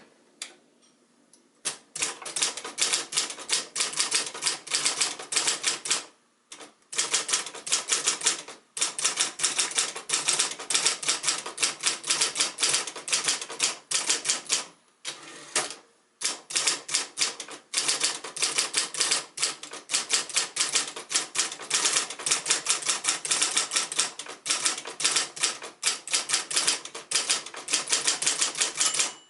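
1971 Royal Saturn portable electric typewriter being typed on: fast runs of motor-driven key strikes with a few short pauses, and a steady hum in the gaps.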